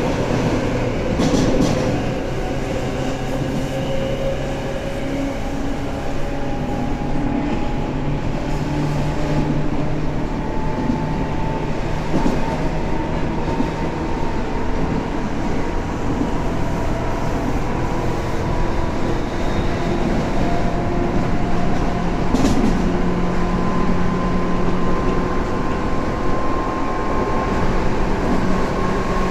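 Tobu 9000 series electric train running, heard from inside the car: the motor whine slowly rises in pitch as the train gathers speed, over a steady rumble of wheels on rail. There are two sharp clacks, about a second in and again about two-thirds of the way through.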